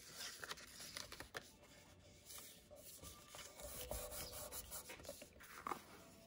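Faint rubbing and rustling of paper as hands smooth and press a freshly glued envelope flat onto a journal page, with a little paper handling near the end.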